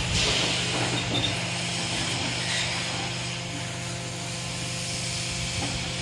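Hydraulic scrap metal baler's power unit running: a steady low hum from the motor and pump with a hiss over it and a few light knocks.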